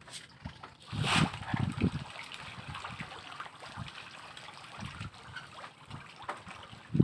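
Scoop of feed pellets hitting the water with a splash about a second in, then a steady patter of farmed fish splashing at the surface of the net cage as they feed.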